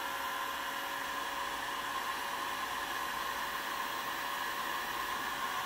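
Bosch Professional GHG 23-66 heat gun running at maximum airflow: a steady rush of air from its fan, with faint steady tones under it.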